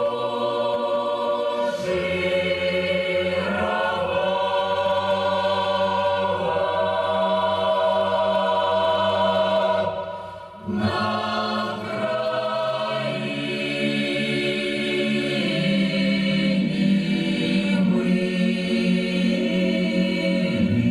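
A choir singing slowly in long held chords, with a brief break between phrases about halfway through.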